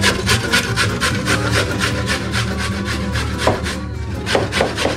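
A carrot being grated on a metal box grater: quick, regular scraping strokes, about five a second.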